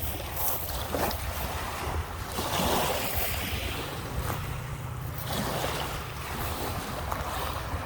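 Lake Michigan waves washing onto the beach, one surge swelling louder about three seconds in, with wind buffeting the microphone.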